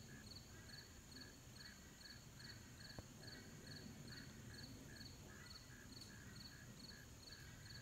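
Faint insects chirping: a high chirp repeating steadily about twice a second, with a lower pulsing chirp alongside. One faint click about three seconds in.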